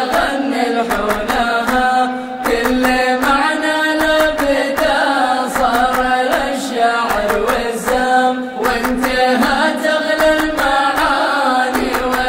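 Male chorus singing a chanted refrain together, accompanied by rhythmic hand clapping.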